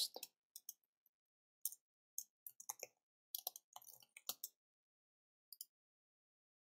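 Computer keyboard keys typed in short irregular runs of sharp clicks, then a quick double click, a mouse button pressed to submit the form, about five and a half seconds in.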